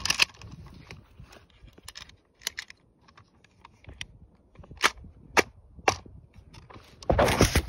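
Scattered sharp clicks and knocks, then about seven seconds in a sudden loud burst of MG42 machine-gun fire on short .308 blanks.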